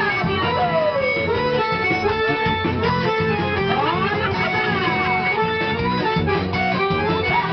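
Quadrilha dance music playing loudly, with plucked guitar and sliding, swooping lead lines over a steady bass beat.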